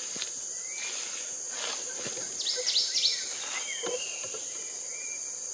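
A steady high-pitched insect drone from the orchard, with a few short falling chirps about two and a half to three seconds in.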